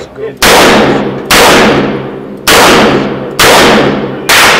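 Handgun fired five times in steady succession, roughly one shot a second, each loud report trailing off in a long echo of the shooting range.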